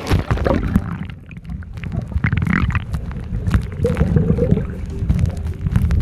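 Muffled low rumbling and gurgling of sea water around a phone camera held at or under the surface, with irregular sloshes and knocks.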